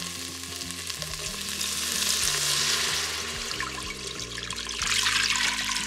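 Chicken broth poured into a hot stainless-steel Instant Pot inner pot over sautéed onions and garlic, sizzling as it deglazes the pan. The sizzle swells about two seconds in and again near the end.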